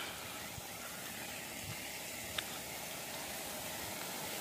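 Water jetting from a leak in a pipe, a steady hiss, with one short click about halfway through.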